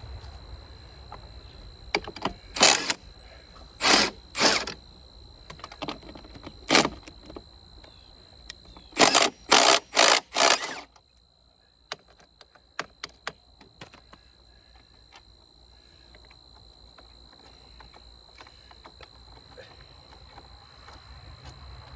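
Pneumatic impact wrench hammering in short bursts to break loose bolts on an old sawmill frame: single bursts a second or two apart, then four in quick succession, followed by a few light metallic clicks.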